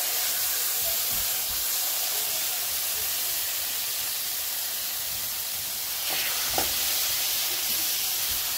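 Chicken cutlets sizzling in melted butter in a grill pan: a steady hiss of frying, with a brief tap about six and a half seconds in.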